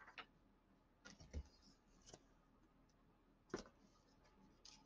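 Near silence: room tone with a few faint, short clicks and taps, one of them a little more distinct about three and a half seconds in.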